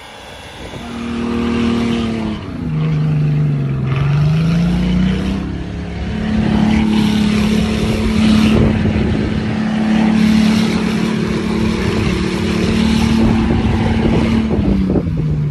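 Engine of a 4x4 SUV revving hard in deep snow, held at high revs with its wheels spinning and throwing snow. The pitch dips and climbs back in the first few seconds, stays steady for most of the rest, and falls near the end as the driver backs off.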